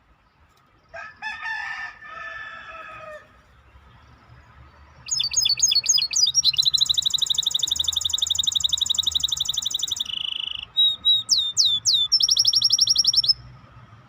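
A songbird singing loudly in fast, high trills. A soft, lower call comes about a second in. From about five seconds there is a burst of quick sweeping notes, then a long rapid trill. A short buzzy note and more sweeping notes follow, and a second fast trill stops abruptly a second before the end.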